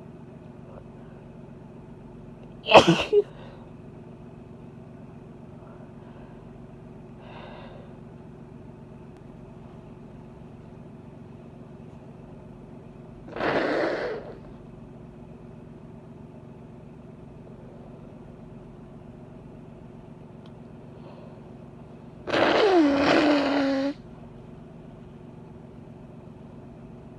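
A woman's allergy sneeze, one short sharp burst about three seconds in. Later come two longer, breathy blasts of her blowing her nose, one around the middle and a louder one near the end with a falling pitch. A low steady hum runs underneath.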